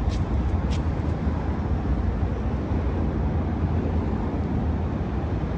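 Steady low rumble of outdoor background noise, with two brief high hissy ticks in the first second.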